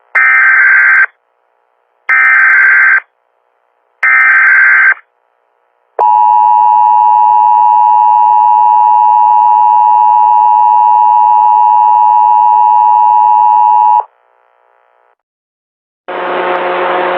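Emergency Alert System SAME header: three buzzy one-second data bursts about two seconds apart, followed by the EAS two-tone attention signal, a steady dual tone held for about eight seconds that cuts off abruptly. About a second before the end, a noisy broadcast sound starts.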